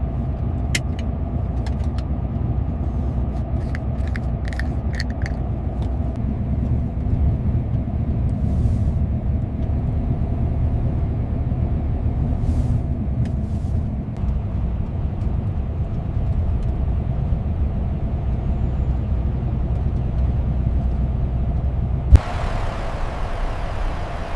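Heavy truck driving, a steady low engine and road rumble, with a few sharp clicks in the first few seconds. A single loud thump comes near the end, and the rumble changes character after it.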